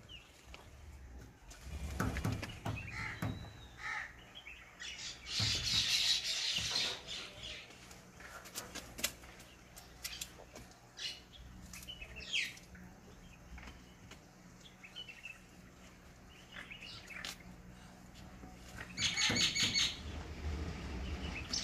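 Birds calling: crows cawing, loudest about six seconds in and again near the end, with smaller birds chirping in between. Scattered light taps of fingers on the paper and metal sheet.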